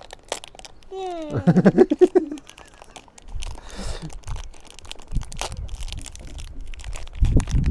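Packaging of a disposable camera being crinkled and torn open by hand, a steady run of small crackles. A child's voice sounds briefly about a second in.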